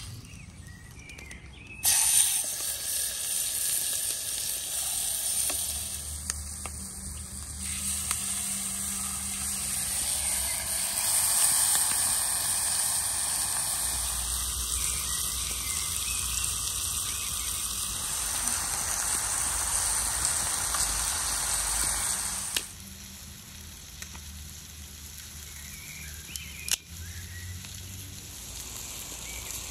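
Whole chicken sizzling as it fries between two hot flat stones over a wood fire: a loud steady hiss that starts abruptly about two seconds in and cuts off abruptly after about twenty seconds. After it, a quieter wood fire with one sharp crack.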